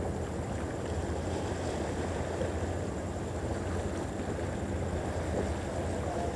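Steady low rumble of sea surf washing on the rocky shore, with a steady low hum beneath it.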